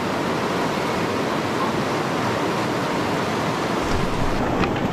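Steady rush of river water flowing over rocks, an even wash with no let-up, with a few faint ticks near the end.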